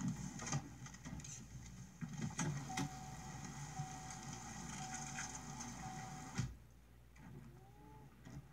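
Rhythmic mechanical clattering with a steady high tone that comes and goes. Both stop abruptly about six and a half seconds in, and only faint sounds follow.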